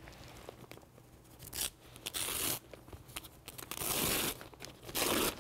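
A reflective mummy bag from a hypothermia kit being unfolded and laid out by hand: several short bursts of crinkling, ripping noise from its fabric, the longest about two seconds in and near the end.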